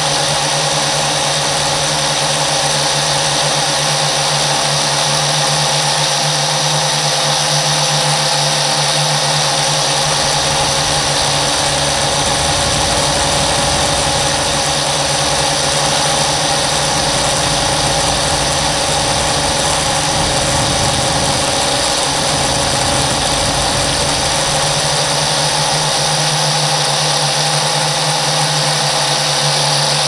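Latrax Alias quadcopter's motors and propellers whining steadily in flight, recorded up close by the action camera mounted on the drone. The pitch dips briefly about two-thirds of the way in as the throttle shifts.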